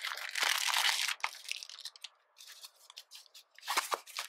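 Clear plastic packaging bag crinkling and tearing as a phone case is pulled out of it, dense for the first second or so, then a few sharp clicks and taps near the end as the case is handled.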